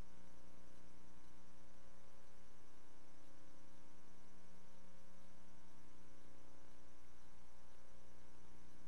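Steady electrical hum over a light hiss with nothing else heard: the noise floor of a soundless archival film transfer.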